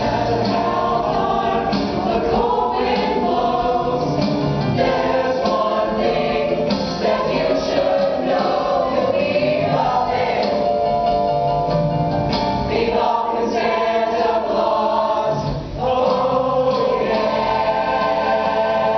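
A mixed group of young voices singing together as a choir, ending on a long held chord near the end.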